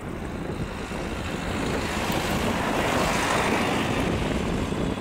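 Jet engines of an Airbus A320-family airliner rolling along the runway: a rushing noise that builds to its loudest about three seconds in, then eases slightly. Wind buffets the microphone throughout.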